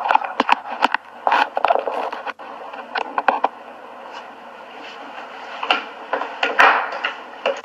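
Handling noise of a smartphone being moved and propped up: irregular knocks, taps and scrapes of fingers and objects against the phone close to its microphone, in clusters, with a rubbing scrape a little before the end.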